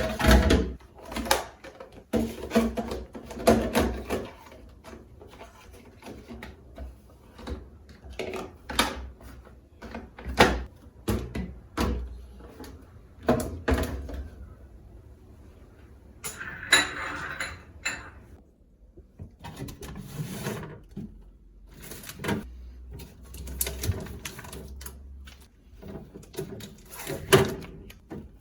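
Kitchen clatter: repeated knocks and clicks of items, cupboard doors and drawers being handled during cleaning, with a short rushing or scrubbing noise a little past halfway.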